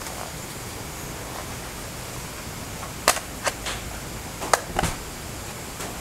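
A few sharp plastic clicks and taps, about five within two seconds past the middle, as a plastic RC rock crawler toy and its transmitter are handled, over a steady background hiss.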